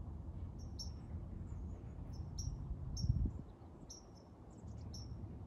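A cricket chirping: short high chirps repeating about every half second over a steady low rumble, with a louder low thump about three seconds in.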